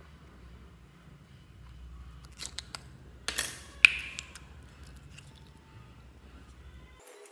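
Hands squeezing and pressing slime, making sticky clicks and crackles. These are loudest in a short burst a little past the middle, with one sharp click in it.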